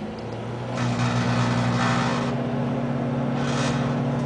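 Microwave oven running with carrot pieces inside: a steady electrical hum that comes up within the first second. Two stretches of hiss sit over it, one lasting over a second from about a second in, a shorter one near the end.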